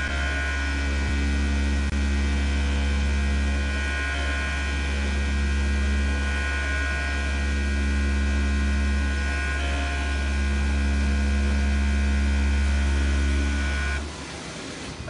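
CNC oscillating knife (a 400 W electric oscillating tool) cutting 50 mm closed-cell EVA foam: a loud, steady low hum with a thin, steady high whine over it. The hum cuts off suddenly near the end as the knife stops cutting.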